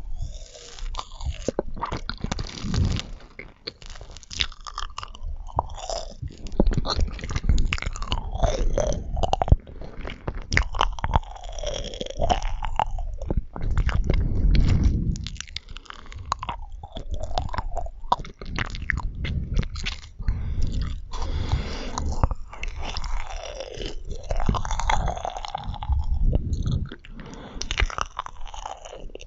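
Close-miked chewing of marshmallows: steady mouth sounds with many small clicks and smacks.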